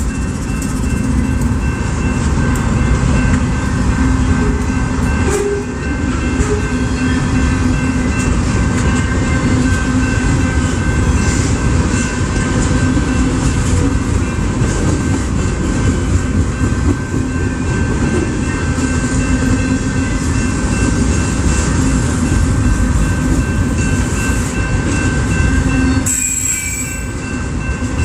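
BNSF freight train rolling past, a steady loud rumble and rattle of the cars on the rails with thin, steady high whining tones over it.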